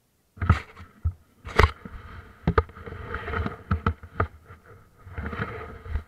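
Muffled, uneven running of motocross bike engines waiting at the start gate, with several sharp knocks on the bike or camera housing; it cuts in abruptly about half a second in.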